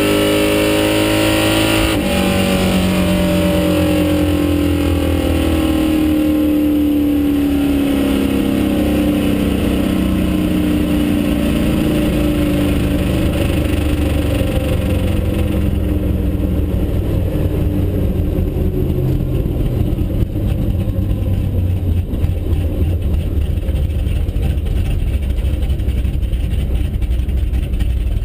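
Car engine heard from inside the cabin at full throttle, rising in pitch for about two seconds, then lifted off at the end of a drag-strip pass. The engine note then drops and winds down slowly as the car coasts, settling into a low rumble under road and wind noise.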